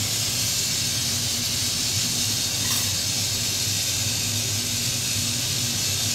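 Glassblower's bench torch flame hissing steadily as glass is heated in it, with a steady low hum underneath.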